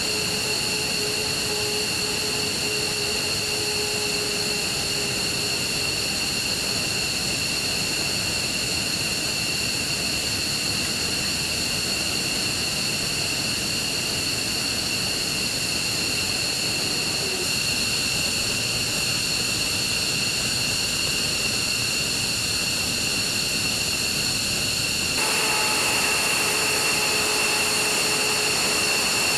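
Steady high whine of running jet turbines, several fixed tones layered over a rushing noise. About 25 seconds in, the sound shifts and grows slightly louder.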